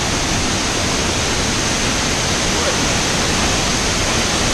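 Waterfall rushing steadily: an even, loud hiss of falling water with no breaks.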